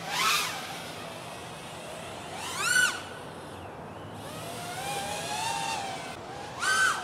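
Racing quadcopter's motors and props whining at hard throttle on fast flybys: three loud passes, each a brief whine rising then falling in pitch, with a quieter, longer wavering pass in between.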